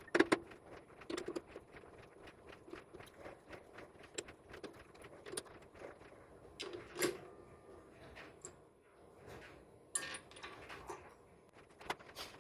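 Scattered light metallic clicks and taps as an aluminium part is centred in a three-jaw lathe chuck: hands and a chuck key tapping the part and loosening and retightening the jaws. A few louder knocks come just after the start, about seven seconds in and about ten seconds in.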